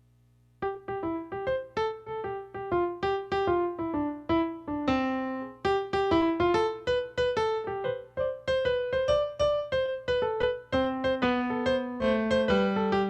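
Piano music starting about half a second in after near silence: a flowing run of quickly struck notes, playing as the closing music of the service.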